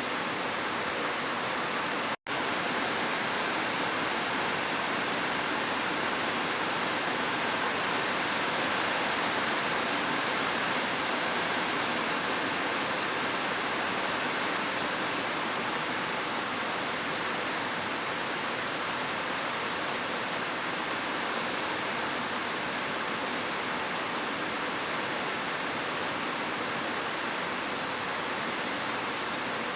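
Heavy rain falling: a steady, even hiss, with a momentary cut to silence about two seconds in.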